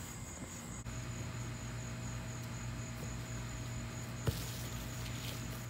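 Insects chirping steadily in a high, pulsing trill over a steady low hum, with one sharp thud a little over four seconds in as a soccer ball is kicked.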